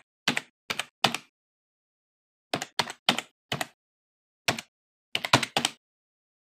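Computer keyboard keystrokes typing a word: about a dozen sharp key clicks at an uneven pace, ending in a quick run of four near the end before stopping.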